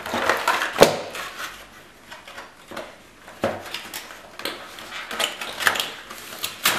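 Cardboard packaging being handled: a cardboard insert tray and box flaps rubbing and scraping against the box, with scattered sharp clicks and knocks, the loudest about a second in.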